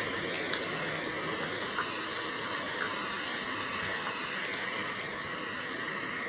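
Steady rush of water flowing in an irrigation canal, with a few faint clicks.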